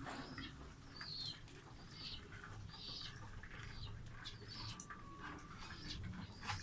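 Pet birds chirping: short, high calls repeating about once a second, with a few faint clicks and a low steady hum underneath.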